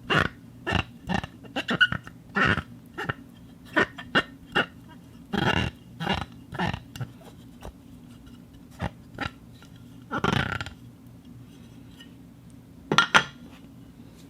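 Glass objects tapped and clinked against each other: a run of irregular sharp clinks with brief high ringing, a couple of longer glass-on-glass scrapes about five and ten seconds in, and a last double clink near the end.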